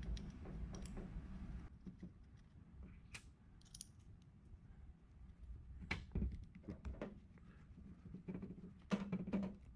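Faint scattered clicks and taps of small screws and a metal mounting bracket being handled on an oil separator can, with the screws turned in by a Phillips screwdriver near the end.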